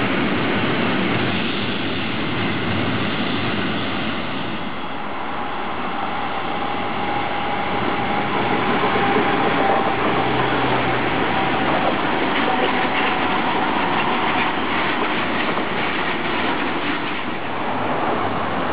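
A freight train of covered sliding-wall wagons rolling past, then an ICE 3 high-speed train passing on the near tracks, with steady rolling noise and wheel clatter over the rail joints. A thin steady squeal runs through the middle.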